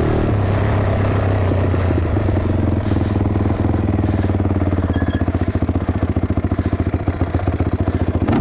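ATV engine dropping to low revs right at the start, then running with a rapid, uneven exhaust beat that becomes more pronounced about halfway through.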